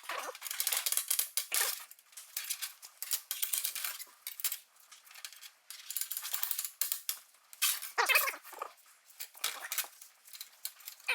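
MIG welder arc crackling from a Vulcan MIG-Max 215 running solid wire, laying short welds on a steel frame. The crackle comes in stretches of a second or two with brief pauses between them.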